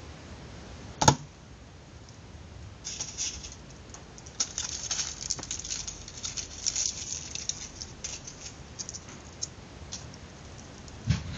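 Paper crinkling and rustling in quick irregular bursts as it is rolled and folded by hand, with one sharp knock about a second in and another near the end.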